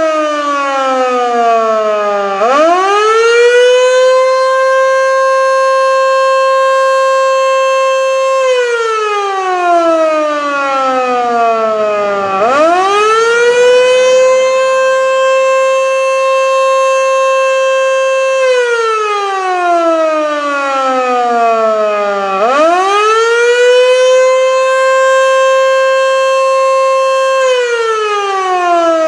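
Federal Signal Model 2 electromechanical fire siren sounding its wailing attack signal. The pitch climbs quickly, holds steady for several seconds, then slides slowly down, over about three cycles of roughly ten seconds each.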